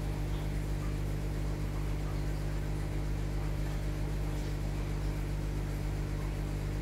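Steady low electric hum of an aquarium air pump running the sponge filters, with no change in level.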